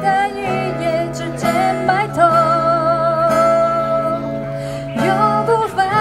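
A woman singing with her own acoustic guitar accompaniment, holding one long wavering note through the middle before moving on over the chords.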